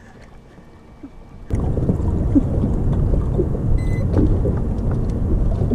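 Steady rumble of wind and water on an open boat on a choppy lake, setting in suddenly after a quiet first second and a half, with small scattered ticks and one short high electronic beep near the middle.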